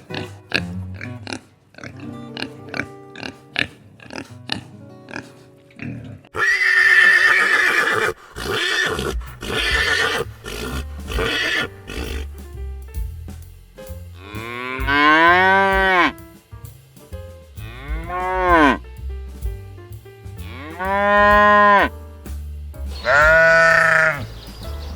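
Sheep bleating over background music: a harsh stretch of calls, then four separate drawn-out bleats, each rising and then falling in pitch. The first few seconds are music alone.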